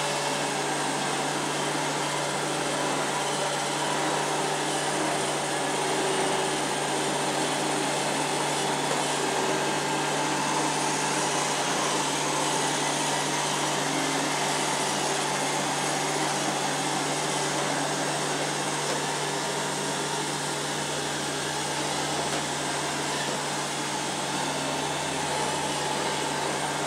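Robot vacuum cleaner running: a steady whir with a constant low hum underneath.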